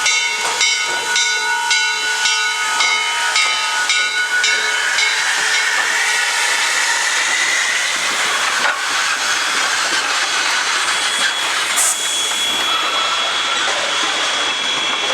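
Steam locomotive 1309, a Baldwin-built C&O 2-6-6-2 Mallet, sounding its multi-note chime whistle over quick, regular exhaust chuffs. The whistle cuts off about four and a half seconds in, leaving a steady loud hiss of steam.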